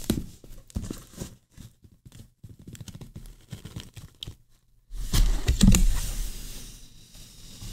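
Cardboard packaging handled close to the microphone: scrapes and taps as a product box is slid out of its cardboard sleeve, with a louder rough rubbing about five seconds in.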